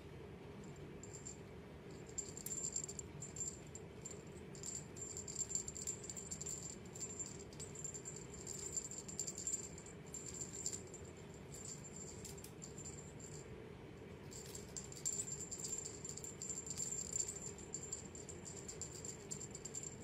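A small jingling toy rattle, shaken in quick bursts over and over. It starts about two seconds in and pauses briefly about three-quarters of the way through.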